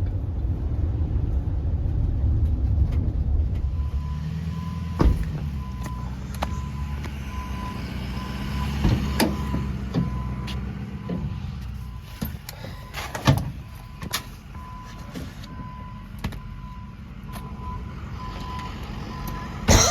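Inside a moving vehicle: steady low engine and road rumble, with a few sharp knocks and rattles.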